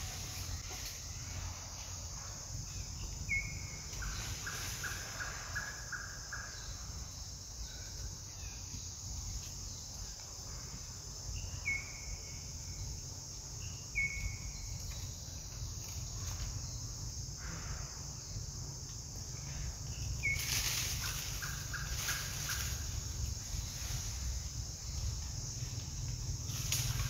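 Outdoor ambience of a steady, high insect drone, with a few short, falling chirps and two rapid stuttering call series, over a low rumble.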